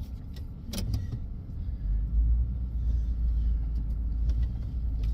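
Pickup truck engine running, a steady low rumble, with a single short click about a second in.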